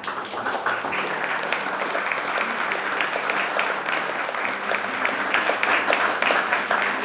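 A small group of people applauding, dense steady hand-clapping.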